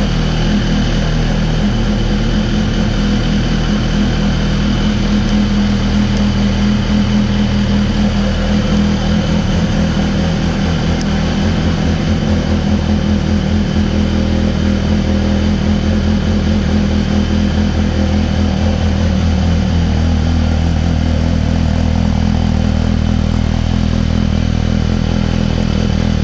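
Suzuki GSX-R1000's inline-four engine idling steadily through its exhaust.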